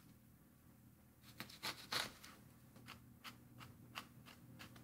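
Chef's knife chopping on a wooden cutting board, finely mincing onion and garlic. Quiet for about a second, then a few separate taps that turn into a quick, even run of light taps, about six a second.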